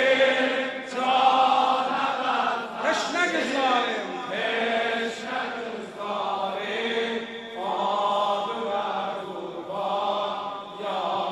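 A male lament singer chanting a Shia mourning elegy (mersiye) in long, wavering, melismatic held notes, amplified through microphones.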